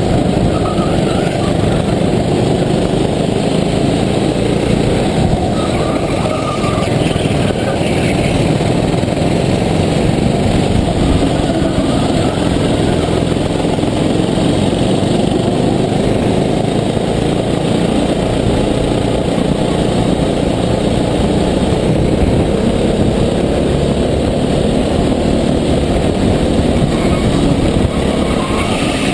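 Sodi rental kart's engine running hard through a race, heard on board, a steady loud drone that changes little in pitch, with other karts running close by.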